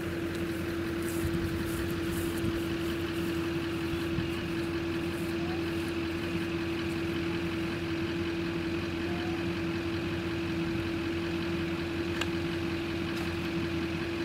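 A vehicle engine idling steadily, a constant hum with one strong, even tone.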